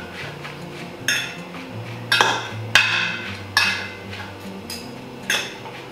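Metal utensils clinking against a stainless steel bowl as a lettuce, tomato and onion salad is tossed: about half a dozen sharp, ringing clinks.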